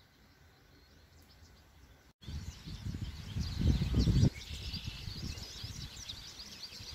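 Outdoor birdsong: many small birds chirping and calling. It starts abruptly about two seconds in, after a short stretch of quiet room tone. A low wind rumble on the microphone is loudest around the middle.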